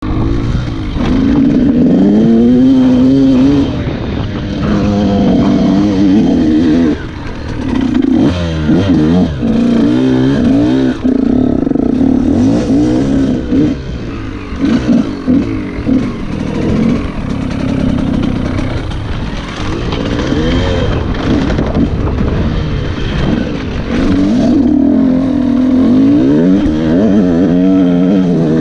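KTM EXC 125 two-stroke enduro engine under load as the bike is ridden off road, revving up and dropping back again and again with the throttle.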